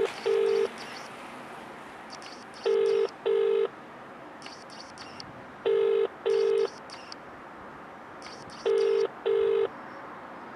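Telephone ringback tone, the British double ring: pairs of short steady tones repeating about every three seconds as a call rings out. Three full double rings are heard, plus the tail of one at the very start.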